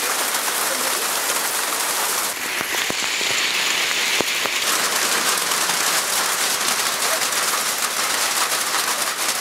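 Heavy hail falling: a dense, steady hiss made of countless small sharp clicks of hailstones striking the ground, foliage and corrugated roofs.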